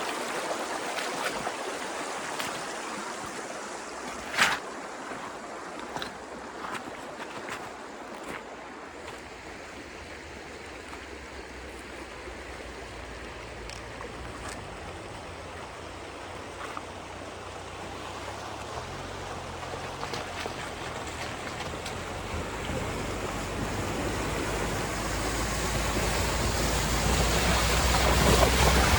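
Dacia Duster 1.5 dCi diesel 4x4 driving on a rough forest track: a steady rush of tyre and ground noise with a few sharp knocks, the loudest about four seconds in. A low engine drone builds and grows louder over the last ten seconds.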